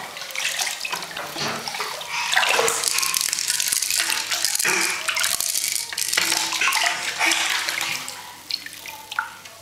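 Bathwater splashing and sloshing as a toddler plays in a bubble bath: irregular splashes that die down near the end.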